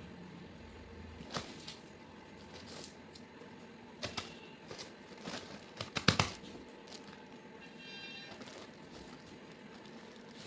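A few light taps and clinks, the loudest a quick cluster about six seconds in, with a brief squeak near the end.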